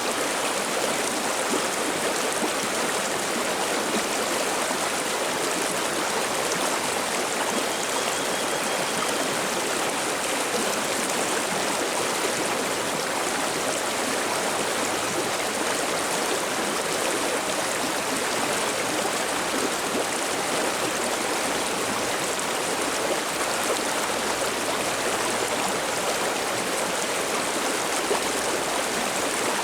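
A river stream running over rocks with a steady babbling rush.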